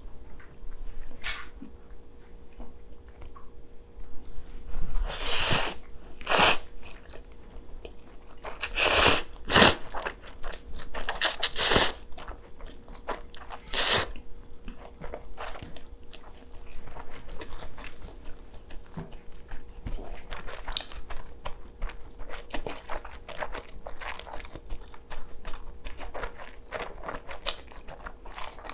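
Close-miked eating of spicy stir-fried noodles and kielbasa sausages: chewing with many small wet mouth clicks, broken by several louder bites or slurps, each about half a second, in the first half.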